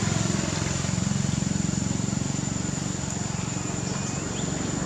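A steady low engine-like hum with a fine even pulse, and a thin high steady tone over it.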